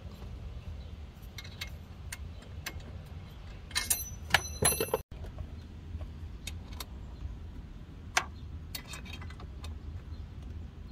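Small clicks and taps of hardware being handled, with a burst of sharp, ringing metallic clinks about four seconds in, over a steady low hum.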